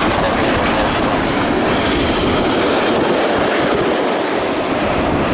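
Steady engine noise from an Airbus A330-900neo's Rolls-Royce Trent 7000 turbofans as the airliner comes in to land.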